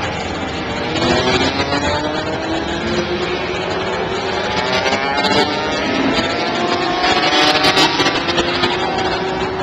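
Several racing kart engines running at high revs and overlapping, their pitch climbing slowly as the karts accelerate, first from about a second in and again from about halfway through.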